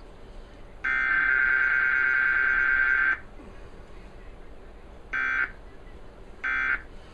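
Emergency Alert System digital header tones (SAME data bursts) coming from a TV's speaker: one harsh buzzing burst of about two seconds about a second in, then two short bursts near the end, about a second and a half apart.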